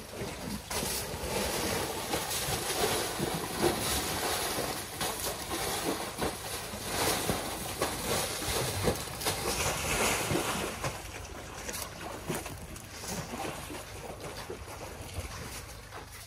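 Thick wet mud and water sloshing and splashing in irregular bursts as elephants wallow and roll in a mud pool, busier through most of it and easing off near the end.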